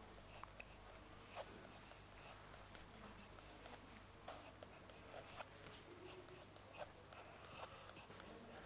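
Coloured pencil shading on sketchbook paper: faint, irregular scratchy strokes.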